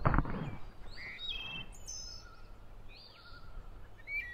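Small songbirds calling with varied high chirps and short trills. A short, loud handling noise close to the microphone comes in the first half second.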